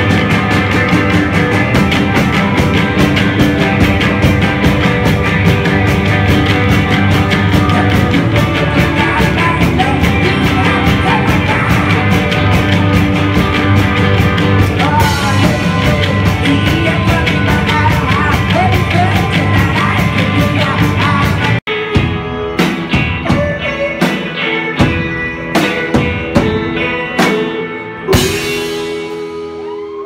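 Rock band playing live on electric guitars and drums, with singing: loud and dense for most of the time. About two-thirds of the way through the band stops dead, then plays a string of sharp hits together, the last one ringing on and fading out.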